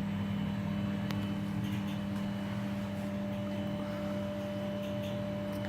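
Samsung WW80J5555FA washing machine just started on a cycle: a steady low hum with a faint whine, and a single click about a second in.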